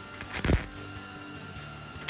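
MIG welder striking a brief tack weld on a steel door latch: one short burst of arc noise about half a second long, a little way in, over background music.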